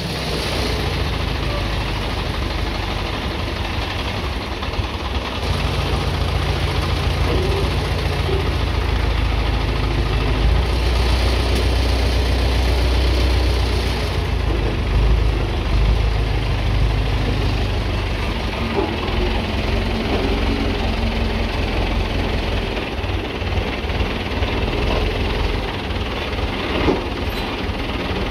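Diesel engine of an Escorts mobile crane running with a steady low rumble while it hoists a load. It runs faster from about five seconds in until about fourteen seconds in, then settles back.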